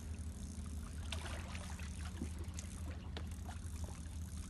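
Steady low rumble with faint, scattered clicks and ticks over it.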